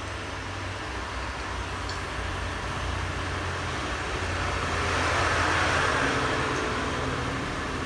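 Handheld electric heat gun running: a steady fan whir and rush of hot air, growing louder about five seconds in. It is warming a vinyl stripe decal on a car's bonnet to soften the glue so the decal can be peeled off.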